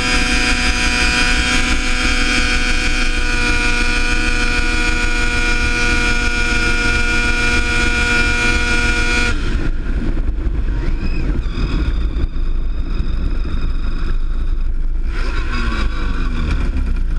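Ski-Doo MXZ 600 snowmobile engine held at high, steady revs as the sled skims across open water. About halfway through, the steady engine tone cuts off suddenly, leaving a rougher, lower rush. Near the end the revs fall as the sled reaches the ice.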